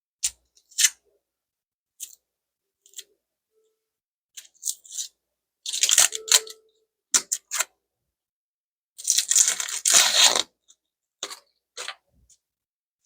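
An onion being peeled and cut by hand: scattered short clicks and crackles, with two longer tearing, crunching sounds about six and ten seconds in.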